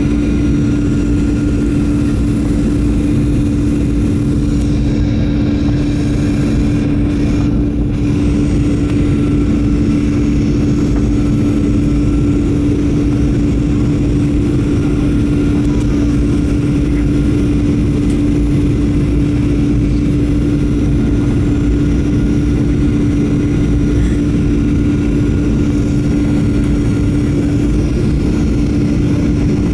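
Boeing 737-900ER's CFM56 jet engines and rushing air heard from inside the passenger cabin: a loud, steady rumble with a constant hum.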